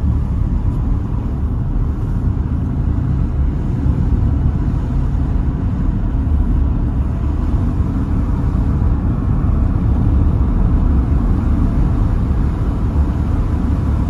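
Steady low rumble of a car driving at an even speed, heard from inside the cabin: tyre and engine noise with no change in pace.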